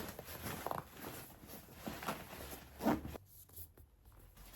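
Rustling and handling noises of items being packed, irregular and soft, with one brief louder sound about three seconds in.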